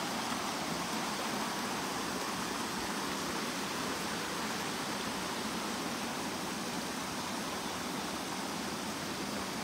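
Steady running water of a shallow stream flowing over rocks, an even hiss that does not change.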